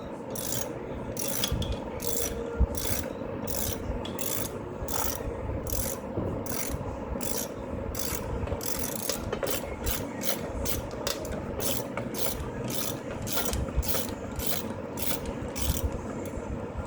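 Hand ratchet wrench clicking in quick repeated back-and-forth strokes, about two to three a second, as bolts on the water pump of a 2003 Chevy Blazer's engine are turned out; the strokes stop shortly before the end.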